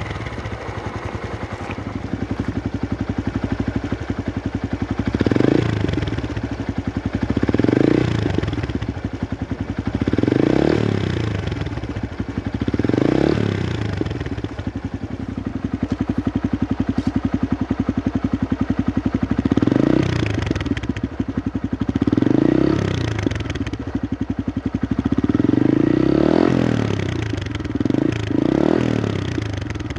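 Honda Grom's 125cc single-cylinder four-stroke engine idling through an aftermarket stainless-steel silencer with its baffle fitted. It is blipped about nine times, each rev rising and dropping back to idle, with a longer rev near the end.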